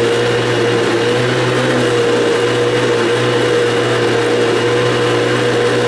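Countertop blender running at a steady, unchanging pitch, pureeing canned whole peeled plum tomatoes.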